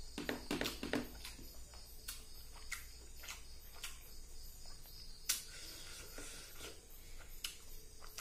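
Fingers mixing rice with fish curry gravy on a plastic plate: scattered wet squishing and clicking, a quick cluster in the first second and a sharper click about five seconds in.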